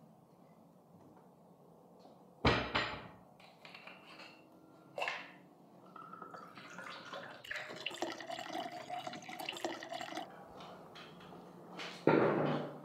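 Water poured into a glass for about four seconds, starting about six seconds in, after a sharp knock about two and a half seconds in. A louder burst of sound starts near the end.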